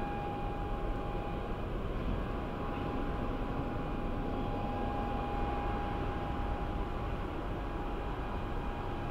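Steady drone of distant airport engines: a low rumble under a constant high-pitched whine that does not change.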